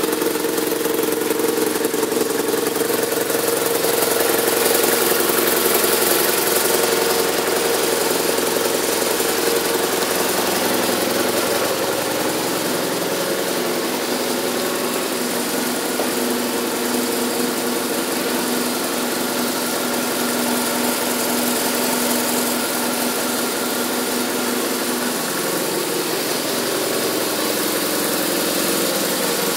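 2010 BMW R1200RT motorcycle's boxer-twin engine idling steadily.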